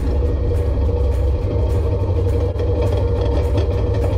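A quad bike's engine runs with a steady low rumble as it rolls slowly, under background music with a light, steady beat.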